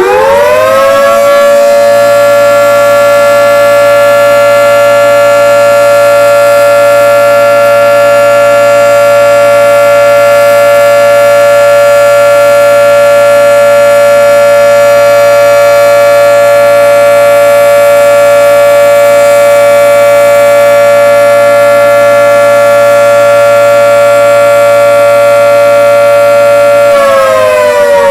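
Federal Signal 3T22 dual-tone outdoor warning siren, very loud, finishing its wind-up with a quick rise in pitch in the first second or two, then holding a steady two-note chord at full speed for its routine test. Near the end it begins to wind down, the chord sliding lower in pitch.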